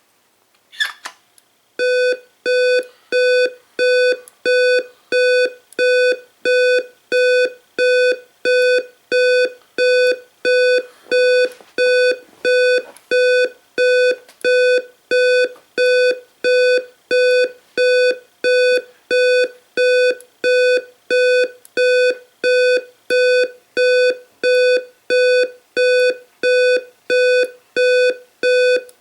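Simplex 2902-9732 LifeAlarm fire alarm speaker sounding a loud, steady-pitched tone in even pulses, about three every two seconds. It begins about two seconds in, after a short chirp.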